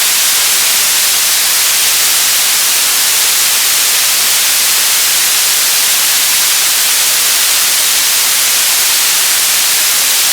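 Television static: a steady, loud, unchanging hiss of white noise, strongest in the high frequencies.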